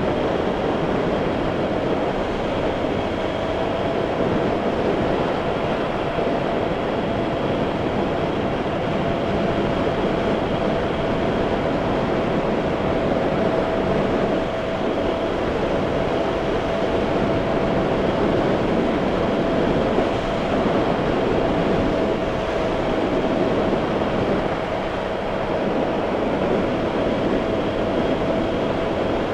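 Honda Bros 160's single-cylinder four-stroke engine running at a steady cruising speed, with heavy wind rush over the action camera's microphone. The engine holds one steady tone, with no gear changes or revving.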